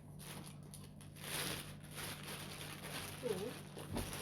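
Rustling and handling of packaging as a vacuum cleaner attachment is taken out of its box, with a short knock near the end.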